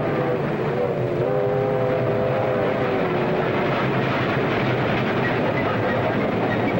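Train running past at speed: a steady, loud rumble and rattle of the cars on the rails. Over the first three seconds a held chord of several tones sounds above it, dipping briefly in pitch about a second in, then fades out.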